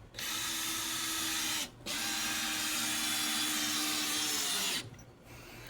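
Power drill driving screws into wooden deck boards: two runs of the motor, a short one, then after a brief stop a longer one of about three seconds.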